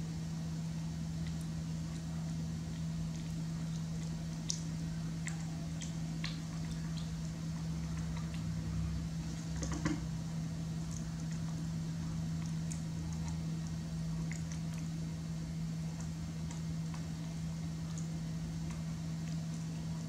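A steady low hum, with faint scattered clicks and rustles from a baby macaque handling a leaf wrapper and eating a soft rice cake; one slightly louder click about ten seconds in.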